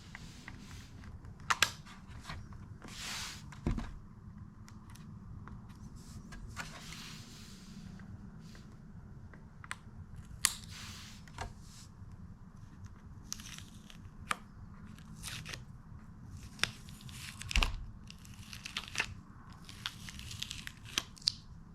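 Masking tape being peeled off a freshly Plasti-Dipped plastic wheel cover, tearing away from the rubbery coating. It comes in irregular tearing and crinkling spells, with a few sharp clicks.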